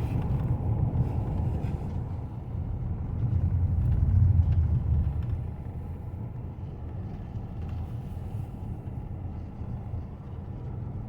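Car driving, a steady low rumble of engine and road noise that swells about three to five seconds in, then settles.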